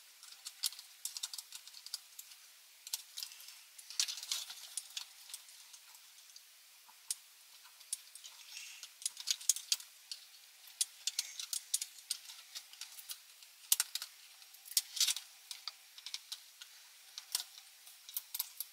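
Small hand tools, a screwdriver and pliers, clicking and tapping against the plastic case and mechanism of a Philips N2234 cassette recorder: scattered light ticks, with a few sharper clicks.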